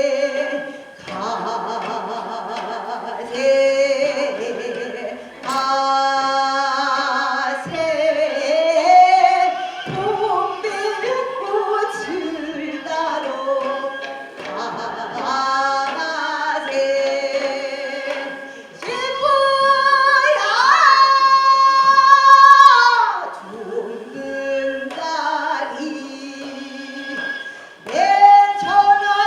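A woman singing a Korean sinminyo (new folk song) in traditional minyo vocal style, holding notes with a wavering vibrato, with a sharp upward slide into a long high note about twenty seconds in.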